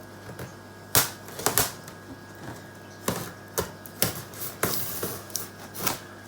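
Irregular sharp clicks and knocks, about nine over several seconds, from handling and cutting into a cardboard shipping box.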